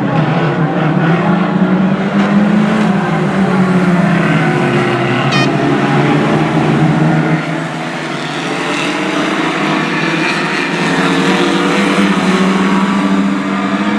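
Engines of several Lightning Rods race cars running at speed in a pack, their pitch wavering as they lift and accelerate; the sound drops back about halfway through and builds again as the cars come round.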